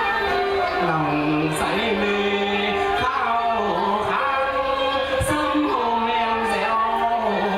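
A singer performing a Vietnamese song live through a microphone, holding long notes that slide and bend, over amplified keyboard accompaniment with a flute.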